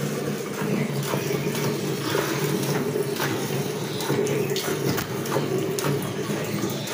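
Cow being hand-milked: streams of milk squirting from the teats into a bowl of milk in short strokes, about one or two a second. A steady low hum runs underneath.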